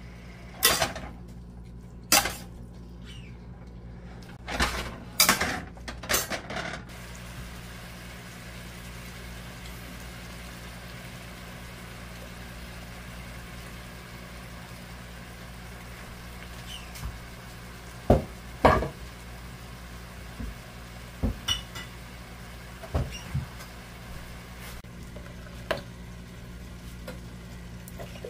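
Slotted metal spatula scraping and clinking against a stainless steel pan as cabbage and mushrooms are stir-fried, in short bursts: a cluster in the first seven seconds and another in the second half.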